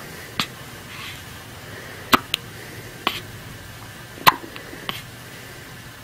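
A one-week-old newborn baby hiccuping: four or five short, sharp hiccups about a second apart.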